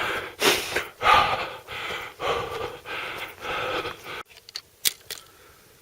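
A hiker panting hard, short breaths in and out in quick succession, out of breath from the steep climb to the summit. The breathing stops about four seconds in, and a single sharp click follows.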